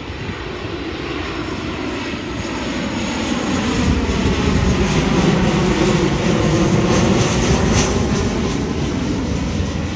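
Jet airliner flying low overhead on its approach to land. The engine roar builds to its loudest about five seconds in, then slowly fades, with a sweeping shift in pitch as it passes.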